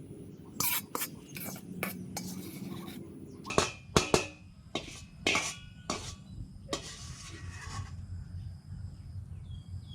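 Metal utensil clinking and scraping against a dish or pan, a string of sharp irregular clinks lasting several seconds, the loudest about four seconds in, then stopping.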